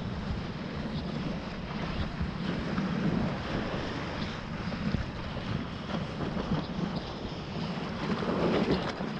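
Water rushing and splashing around a surfboard riding a wave, heard close on a board-mounted action camera, with wind buffeting the microphone. The rush swells louder near the end.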